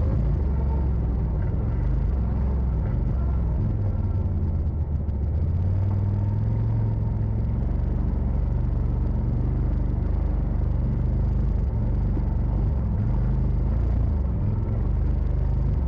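Side-by-side UTV engine running steadily under way on a rough trail, a low rumble whose pitch shifts slightly as the throttle changes.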